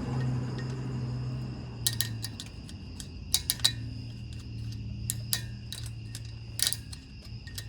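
Hand tools clinking and tapping on the metal of a Jeep's front hub and rotor retaining clips: irregular sharp metallic clicks starting about two seconds in, some in quick pairs, over a steady low hum.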